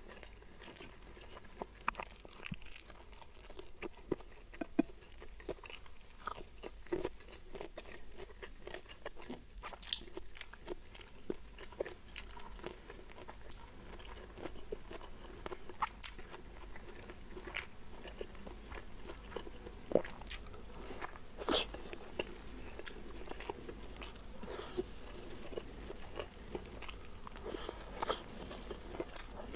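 Close-miked chewing of sauced crispy fried chicken and rice, with irregular wet clicks and crackles of the coating between the teeth. A few sharper crunches stand out, one near the end as a piece of lettuce goes into the mouth.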